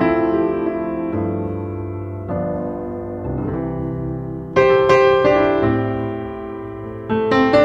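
Background music: piano playing slow chords, each struck and left to fade, with a louder chord about four and a half seconds in.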